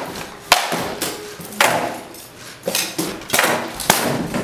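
Rattan swords striking shields and steel armour in armoured combat: about five sharp cracking blows at irregular intervals, each with a short clatter after it.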